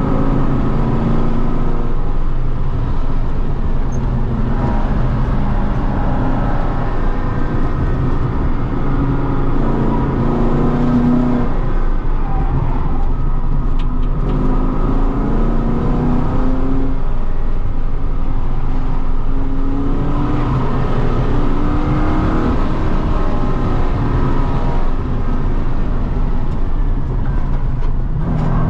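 Holden Commodore VE SS ute's V8 engine driven hard on a track lap. Its pitch climbs through the revs and drops back at each gear change, several times over.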